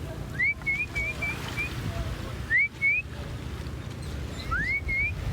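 A bird's clear whistled song, three times over: each phrase is a quick rising note followed by a few short upslurred whistles.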